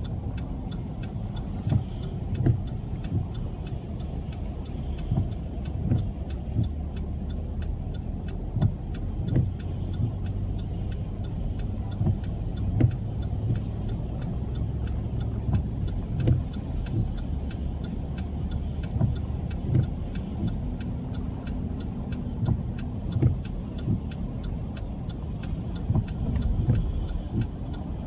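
A car engine running steadily as a low hum, with a fast, even ticking and irregular low thumps over it.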